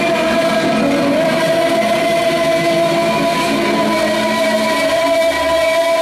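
Live electronic music from a synthesizer and electric bass duo: a loud, steady drone of several layered, held tones that barely change.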